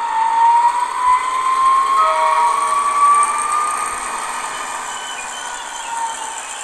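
Steiner Modellwerke 1:32 Köf II model shunting locomotive running along the track, a whine rising slowly in pitch as it picks up speed over the first three seconds or so, then fading.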